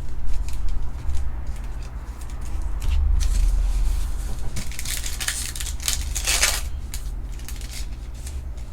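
Trading cards and their packaging being handled: short sliding and rustling sounds, busiest about five to six and a half seconds in, over a steady low hum.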